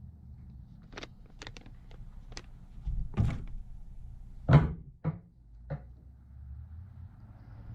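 Scattered clicks and knocks from hands handling the chainsaw and small parts while fitting a new fuel filter onto a fuel line, the loudest knock about four and a half seconds in, over a steady low hum.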